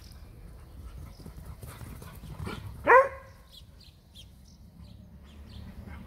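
A dog barks once, loudly, about three seconds in, with faint bird chirps in the background.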